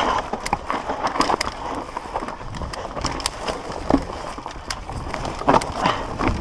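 Mountain bike rolling fast down rocky dirt singletrack: tyres crunching over loose stones and the bike clattering and knocking over bumps. A low wind rumble on the microphone strengthens near the end.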